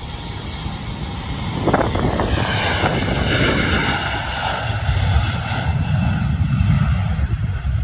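Regional jet airliner on its takeoff roll at takeoff thrust. The engine whine falls in pitch as the jet passes, then a deep rumble builds from about five seconds in. Wind buffets the microphone.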